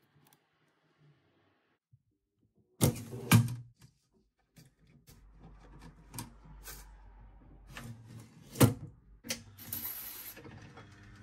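Small clicks and knocks of parts and tools being handled on a workbench, starting about three seconds in with two sharp knocks close together. The loudest click comes near nine seconds, followed by a brief hiss.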